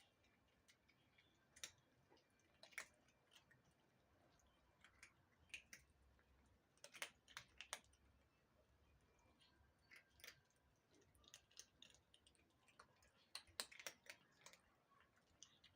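Faint, irregular crunching clicks of cats chewing dry food, with small bursts of several clicks close together.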